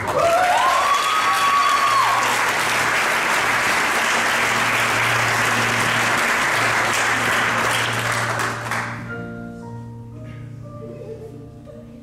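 Audience applauding loudly, with a cheer in the first couple of seconds. The applause fades away about nine seconds in and a grand piano starts playing quietly.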